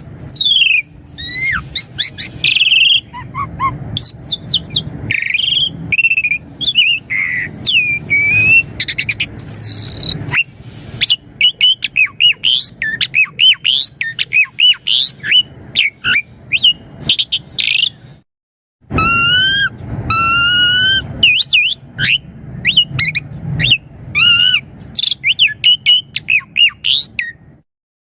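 Javan pied starling (jalak suren) singing a long, varied song of whistles, squeaky notes and quick rising and falling glides, broken once by a short silence about two thirds of the way through.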